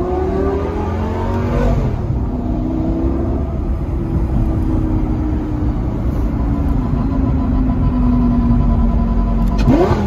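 Car engine heard from inside the cabin, pulling hard with its pitch rising for about two seconds, then dropping at a gear change and running on with the pitch slowly falling, before a sharp rev rises near the end.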